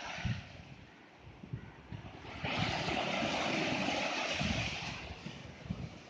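Small sea waves breaking and washing up a sandy beach, a louder surge of surf coming in about two and a half seconds in and fading near the end, with wind rumbling on the microphone.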